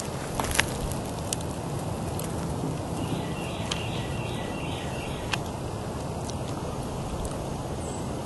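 Outdoor ambience on a rooftop: a steady wind-like rush with a few light clicks, and faint repeated bird chirps about three to four seconds in.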